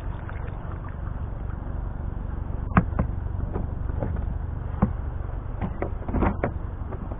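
Steady low wind rumble on the microphone, broken by a few sharp knocks and clicks of fishing gear handled against a plastic kayak, the loudest about three seconds in and a quick cluster near the end.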